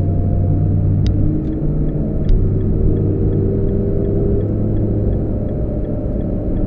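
Steady low drone of a car's engine and tyres heard from inside the cabin while cruising at highway speed, with a couple of short clicks, the sharper one a little after two seconds in.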